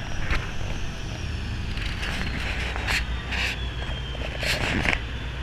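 Passenger boat under way: its engine runs with a steady low drone under the rush of water along the hull and wind on the microphone. There are short bursts of splashing spray about two seconds in, again a little later, and near the end.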